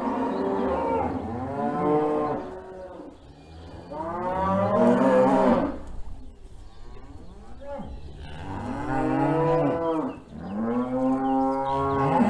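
Cattle lowing: about four long, drawn-out moos one after another, a couple of them overlapping.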